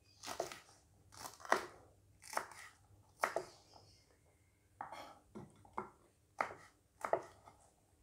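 Kitchen knife cutting green chillies on a wooden cutting board: about ten separate, irregularly spaced cuts, each a short knock of the blade through the chilli onto the board.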